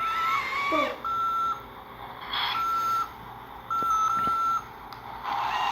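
Electronic beeping from a child's remote-control toy bulldozer: four short beeps at one steady pitch, about a second apart, the last one longer with a brief break in it.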